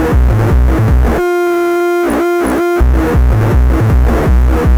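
Distorted electronic beat from a Gemini CDM-3600 all-in-one DJ unit whose output is fed back into its own mic input. About a second in, the heavy kick-drum beat drops out and a steady feedback tone holds for about a second and a half, dipping in pitch twice. Then the beat comes back.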